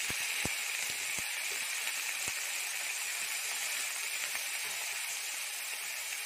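Freshly chopped onion sizzling in hot oil in a kadhai: a steady hiss, with a few sharp pops in the first couple of seconds.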